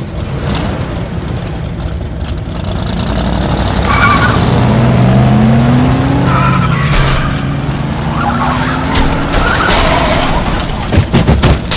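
Racing-car sound effects laid over the race: engines revving up in rising sweeps, with tyre squeals about four, six and a half, and nine seconds in. A few sharp loud bangs come near the end.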